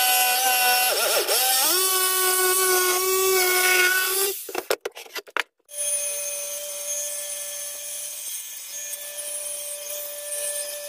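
Electric saw cutting a wooden board along a marked circle, the motor whine shifting in pitch as the load changes. It stops about four and a half seconds in, with a few clicks, then runs on quieter and steadier.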